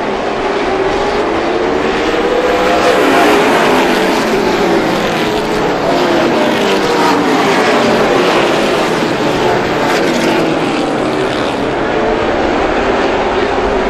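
Several race car engines running together at speed, their pitches rising and falling and overlapping.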